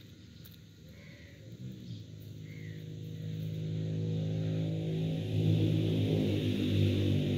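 Low, droning background music fading in and swelling to a steady level about two thirds of the way through.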